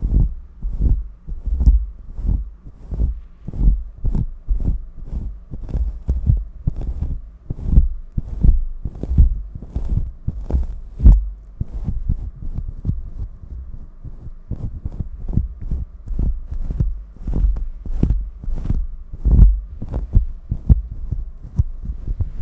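Hand and paddle hairbrush rubbing over a furry microphone windscreen, a steady run of low, muffled strokes about two a second.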